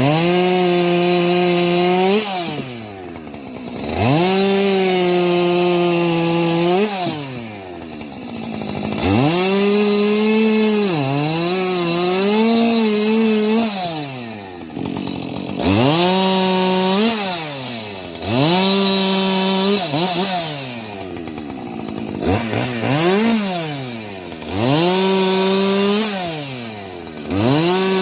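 Two-stroke chainsaw bucking firewood: the engine is revved to full speed again and again, each run held for a second or two up to about three seconds before it drops back to idle. In one run, about ten seconds in, the pitch wavers and dips as the chain loads in the wood.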